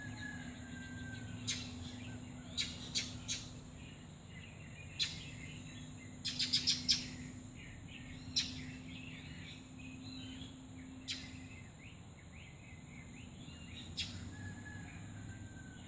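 Birds calling in the morning: scattered sharp chip notes, with a quick run of four about six seconds in, over faint twittering. A steady high-pitched hiss and a low hum run underneath.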